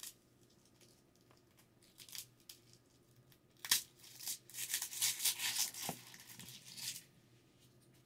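Dry, papery garlic skins crackling and rustling as the cloves are broken from the bulb and peeled by hand. A few light clicks come first, then a sharp snap about three and a half seconds in, then about three seconds of dense crackling.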